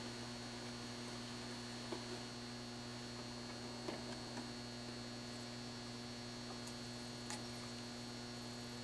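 Steady electrical mains hum, with a few faint clicks about two, four and seven seconds in. No music comes through: the CD changer is set to play but gives no sound.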